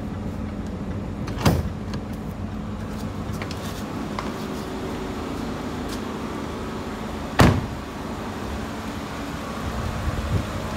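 The 2018 Jaguar XF's bonnet latch pops with a thump as the hood release is pulled, about a second and a half in. A car door shuts with a louder thud about seven seconds in, over a steady background hum.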